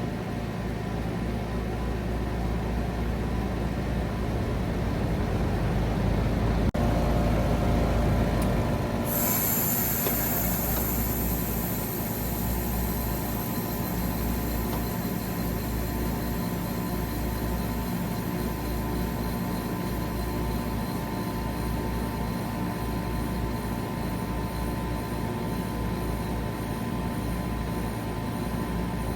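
Trane XR14 3-ton heat pump outdoor unit running, with a low rumble; about seven seconds in there is a sharp click, and about two seconds later the rumble drops out and a loud rushing hiss of refrigerant sets in and slowly fades while the unit keeps humming, typical of the reversing valve shifting as the unit goes into defrost.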